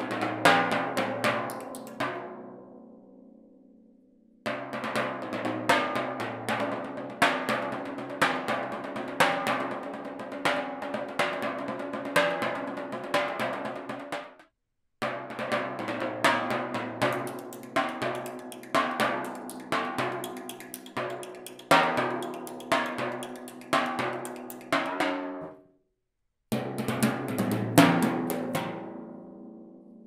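Timpani played with thin brush-type sticks: runs of quick, light strokes that set the drumheads ringing with clear pitches. The passages are separated by short silences, and the drums ring out after each run.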